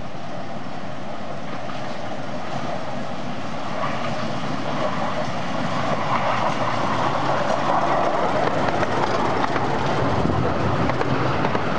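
Miniature 10.25-inch gauge 2-4-2T steam tank locomotive hauling its carriages as it approaches and runs past. It grows steadily louder and is loudest as the train goes by, from about six seconds in.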